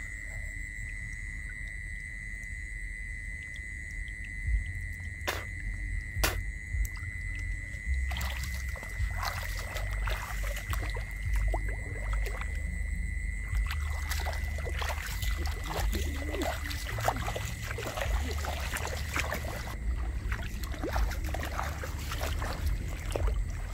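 Water sloshing and splashing as a person moves through shallow water, starting about a third of the way in and going on irregularly. A steady high-pitched tone runs throughout over a low rumble, with two sharp clicks a few seconds in.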